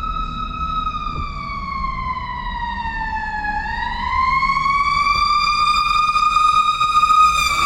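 Emergency vehicle siren wailing: one high tone that slowly sinks for about three and a half seconds, then climbs back up and holds, getting louder. Low traffic rumble underneath.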